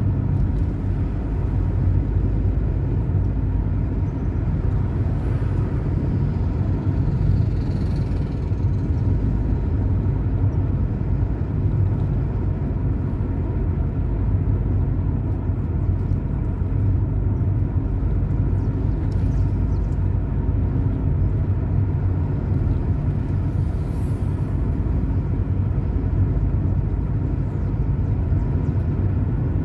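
Car being driven: steady low engine and road rumble.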